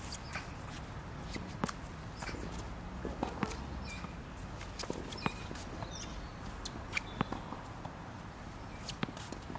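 Light footsteps on an artificial-grass tennis court, with scattered small knocks and clicks over a low, steady background rumble.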